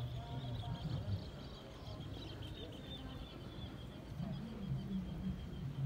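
Outdoor fair ambience: a low murmur of distant voices under a steady high-pitched whine that holds one pitch.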